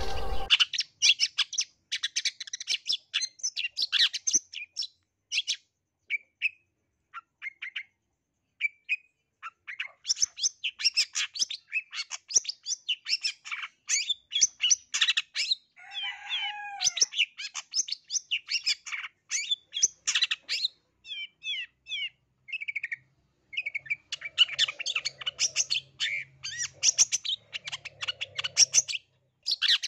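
Long-tailed shrike of the black-capped 'blangkon' form singing a fast, varied song of rapid chattering chirps and trills in quick-fire phrases with short pauses, full of imitated calls of other birds. About sixteen seconds in, a lower, rougher call breaks the run.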